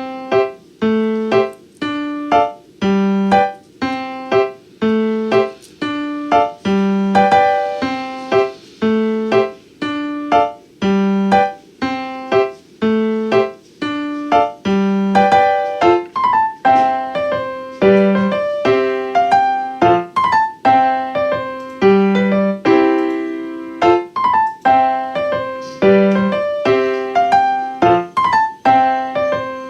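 Background piano music: a steady melody of struck notes, each fading away, over a repeating bass line.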